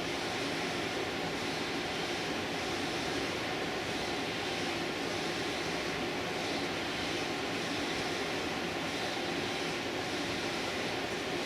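A steady mechanical drone with an even hiss, unchanged throughout.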